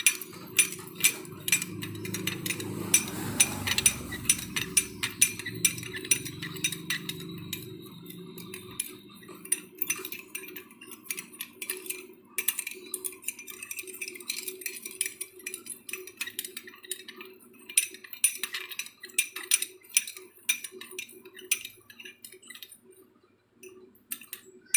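Metal spoon stirring sugar into water in a small glass bowl to dissolve it, clinking quickly and repeatedly against the glass. The clinks grow sparser about ten seconds in and stop shortly before the end.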